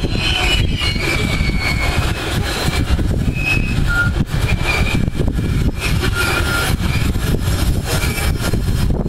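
Loaded freight wagons of a diesel-hauled train rolling past across a bridge: a steady low rumble with the irregular clatter of wheels over the rails, and short high squeals scattered throughout.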